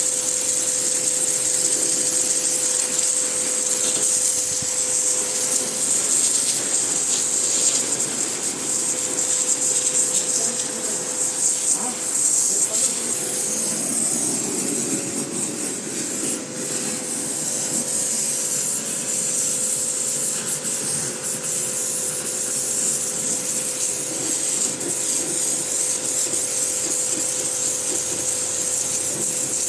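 Pressure washer running, its jet spraying against a wall with a steady loud hiss over a constant motor hum.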